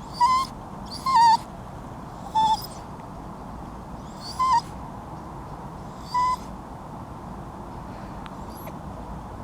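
Cockapoo dog whining: five short, high, wavering whimpers spaced a second or two apart that stop about two-thirds of the way through. The whining is crying for attention.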